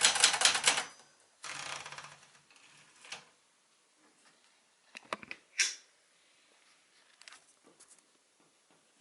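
Brother De Luxe 895 typewriter: a fast run of key strikes for about the first second, then typing stops. A rasping mechanical sound follows, then scattered single clicks and clacks as the machine is worked.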